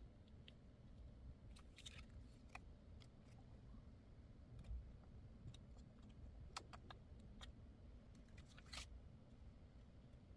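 Near silence with faint, scattered small clicks and taps, some in quick clusters, over a low background hum.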